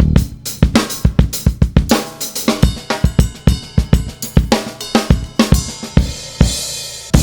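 Background music with a drum beat: kick, snare and cymbals hitting about four times a second, with a cymbal swell building near the end.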